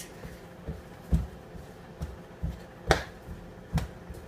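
Feet thumping on the floor in the steady rhythm of jumping jacks, about two landings a second, a few with a sharper slap, the loudest about three seconds in. A faint steady low hum runs underneath.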